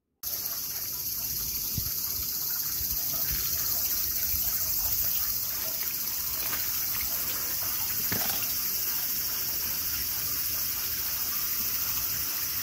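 Water running from a hose pipe into a cooler of water, trickling and splashing, over a steady high-pitched chorus of insects.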